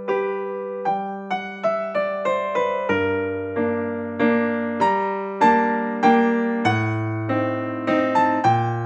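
Background piano music: a gentle melody of single struck notes, each fading away, over held low bass notes.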